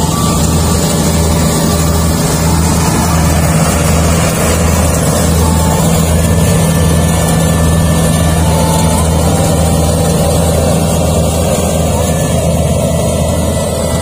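Rice combine harvester's engine running steadily under load, a loud low drone that pulses regularly.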